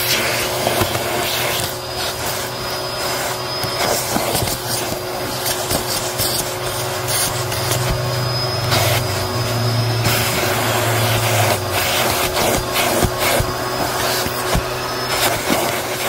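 Bissell Helix vacuum cleaner running with its crevice tool pushed along car carpet. The motor hums steadily while grit and debris crackle and rattle up the nozzle and hose, and a thin high whistle comes and goes.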